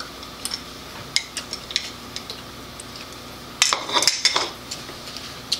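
Wooden chopsticks clicking and scraping against a ceramic rice bowl: a few light taps at first, then a busier run of clicks about three and a half seconds in.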